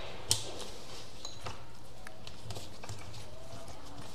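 One sharp click about a third of a second in, then faint scattered ticks and taps: a chimney control PCB's display board and its connector being handled and plugged in.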